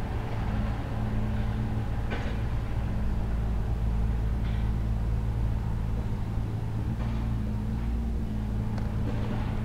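A steady low mechanical hum, even throughout, with a few faint clicks.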